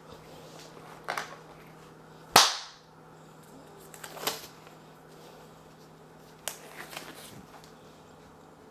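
A handful of sharp clicks and knocks as small metal gun parts and tools are handled while a pistol front sight is fitted, about five in all. The loudest is a hard clack about two and a half seconds in.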